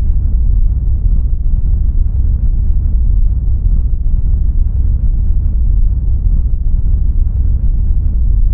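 Underwater churning water: a steady, heavy low rumble of turbulence, as in a struggle below the surface. It cuts off suddenly at the end.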